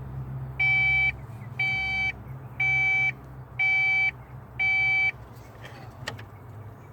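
Electronic warning beeper in a Foxbody Mustang sounding five even beeps, each about half a second long, about one a second. It pauses, and a single sharp click comes about six seconds in.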